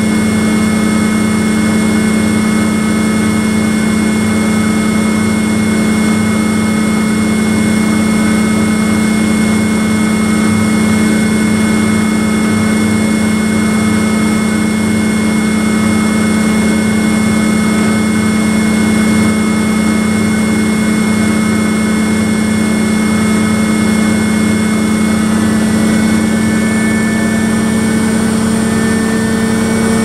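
BEKO WMY 71483 LMB2 washing machine's ProSmart Inverter motor and drum spinning at high speed in the final spin of a rinse cycle: a loud, steady hum, its pitch shifting slightly near the end.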